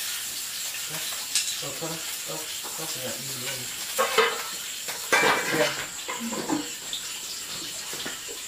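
Food sizzling in a pan with a steady hiss, a few sharp clinks of utensils, and people talking quietly over it.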